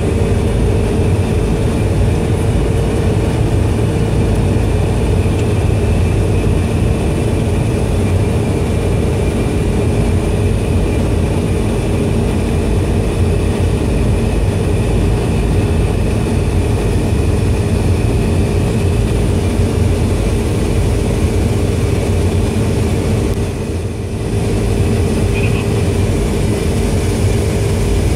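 Steady drone of a BAe ATP's two Pratt & Whitney Canada PW126 turboprop engines and propellers heard on the flight deck on final approach, with a constant hum running through it. The level dips briefly about four seconds before the end.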